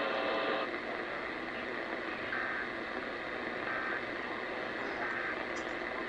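Steady radio receiver hiss, with three short, faint beeps a little over a second apart. A pitched tone cuts off about half a second in.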